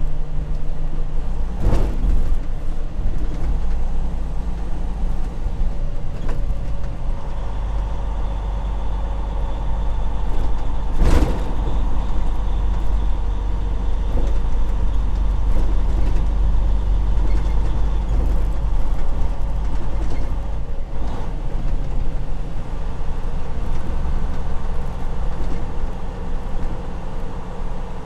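Freightliner Cascadia semi truck heard from inside the cab while driving at low town speed: a steady low engine drone and road rumble. A faint high whine comes in for a while in the middle, and there are three sharp knocks, the loudest near the middle.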